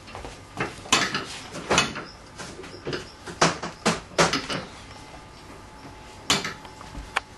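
Hand tools and metal motorbike parts clinking and knocking as they are handled, in irregular clusters of sharp strikes, the busiest stretch about three and a half to four and a half seconds in, with a single louder knock about six seconds in.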